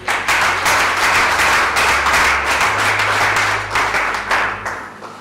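Audience applauding: a dense round of many hands clapping that starts at once and fades out about five seconds in.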